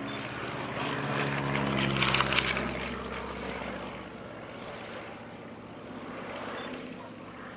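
VL Viima II biplane's Siemens-Halske seven-cylinder radial engine and propeller droning in flight. It swells to its loudest about two seconds in as the plane passes close overhead, then fades as it pulls away.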